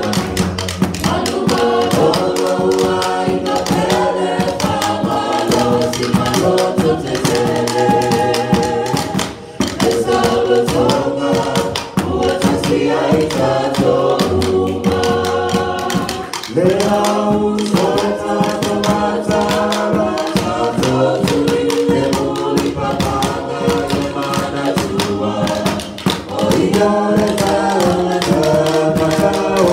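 A small church vocal group singing together in harmony into microphones, long held notes with brief breaks between phrases.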